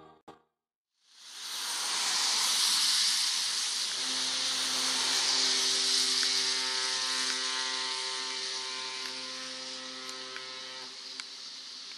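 Steady outdoor hiss fading in about a second in, with a long steady droning tone joining about four seconds in and stopping about seven seconds later.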